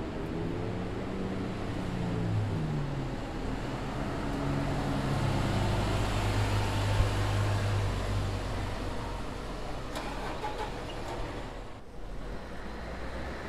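A city bus engine pulling away and driving past, with its engine pitch stepping down in the first few seconds, then holding steady. The engine and tyre noise swell to a peak about six to seven seconds in, then fade, and the sound changes abruptly near the end.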